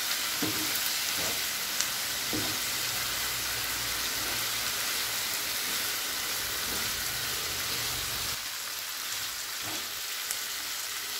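Boneless chicken pieces sizzling steadily in hot oil on a tawa, with a wooden spatula stirring and scraping through them a few times.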